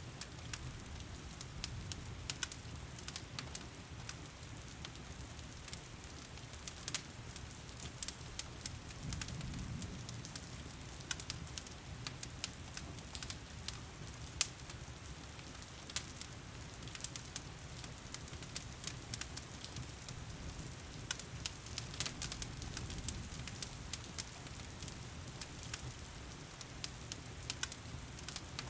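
Wood fire in a stone fireplace crackling with scattered sharp pops, over the steady hiss of heavy rain.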